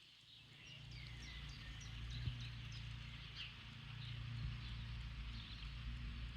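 Faint outdoor ambience: small birds chirping, a quick series of short high falling chirps mostly in the first half, over a low steady rumble.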